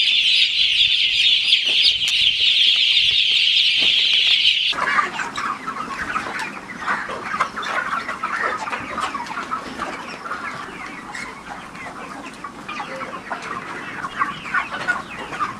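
A large flock of broiler chickens calling all at once: a dense, high, continuous peeping at first, then an abrupt switch about five seconds in to lower, busier clucking and chatter.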